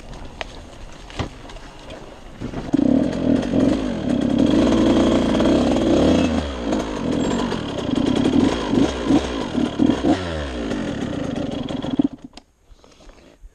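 KTM SX dirt bike engine comes in loud about three seconds in and revs up and down repeatedly, then stops abruptly near the end.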